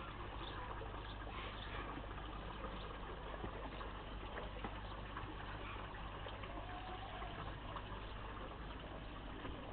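Garden pond water feature running: a steady splash and trickle of falling water.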